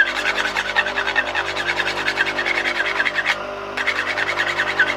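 Bench grinder motor running with a steady hum while a steel spindle gouge is held to the grinding wheel, giving a gritty grinding rasp. The grinding stops briefly about two-thirds of the way through and then resumes as the tool is put back to the wheel.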